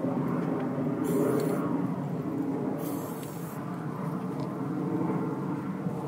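Two short hisses of an aerosol spray-paint can, about a second in and again about three seconds in, each under a second long, over a steady low rumble.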